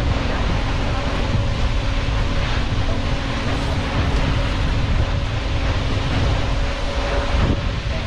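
Wind buffeting the microphone over the steady rush of a large waterfall pouring into the sea, with a tour boat's engine humming underneath; the hum drops away near the end.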